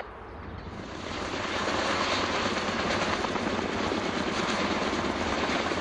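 Kaman K-Max helicopter hovering: its intermeshing twin rotors and turbine engine run with a fast, even beat. The sound grows louder over the first two seconds, then holds steady.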